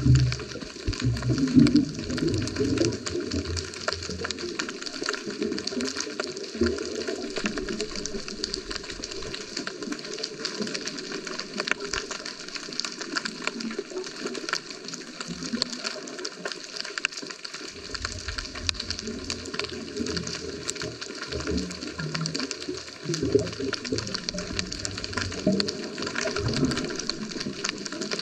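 Scuba diver's exhaled bubbles heard underwater, rumbling past in bursts every few seconds over a steady crackling hiss.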